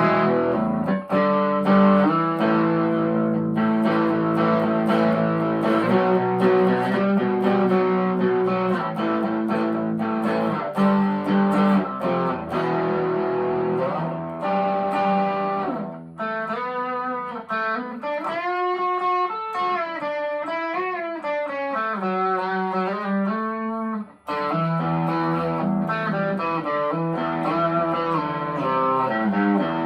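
Harley Benton TE-25th Telecaster-style electric guitar played through a small Marshall MG15 amp with an overdrive pedal: ringing chords, then about halfway through a single-note lead line with string bends and vibrato, then chords again after a brief stop.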